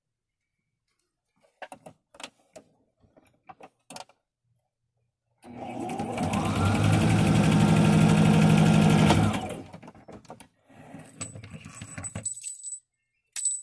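Electric sewing machine stitching a seam that joins two patchwork squares: it comes up to speed about five and a half seconds in, runs steadily for about four seconds, then slows and stops. Before and after it, light clicks and rustles of fabric being handled.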